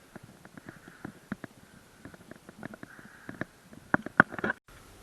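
Irregular knocks and clicks, with the loudest cluster about four seconds in: handling noise and footsteps from walking with a handheld camera. The sound cuts out abruptly shortly before the end.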